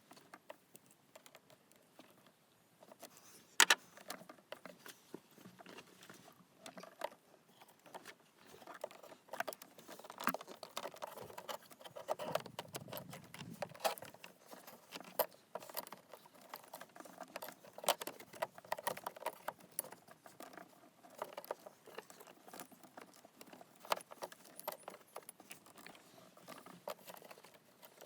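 Irregular small clicks, taps and light metallic rattles of hand work on engine-bay fuel hoses and hose clamps, with a sharper knock about three and a half seconds in.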